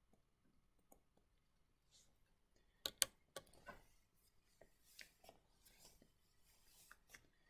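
Near silence with faint taps and scratches of a stylus writing on a screen, the loudest a pair of sharp taps about three seconds in.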